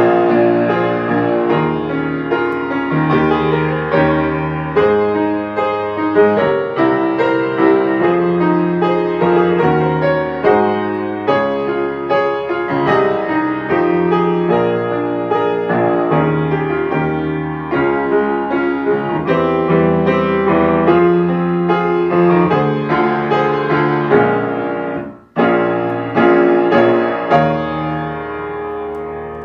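Solo piano playing the accompaniment to a Japanese choral song, with flowing chords over a moving bass line. The playing breaks off for a moment about 25 seconds in, then carries on.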